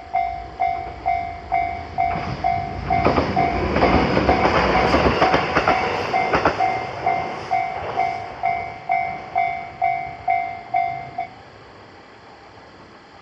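Japanese level-crossing warning bell dinging steadily, a little over two strikes a second, while a train passes through from about two seconds in. The train's wheels clack over the rail joints, loudest around the middle. The bell stops about eleven seconds in.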